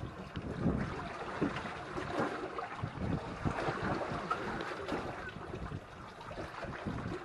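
Rough sea water splashing and slapping irregularly against a small boat, with wind on the microphone.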